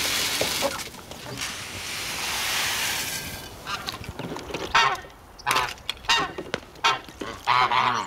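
Water poured from a bucket in a steady rush for the first three seconds, then domestic geese honking repeatedly from about four seconds in.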